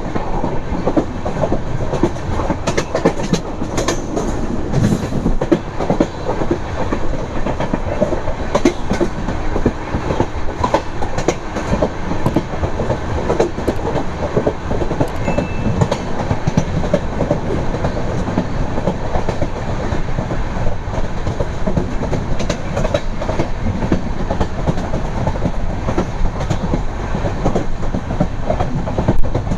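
Passenger train coaches running along the track: a steady rumble of wheels on rail with irregular clickety-clack clicks over the rail joints, and one louder clack near the end.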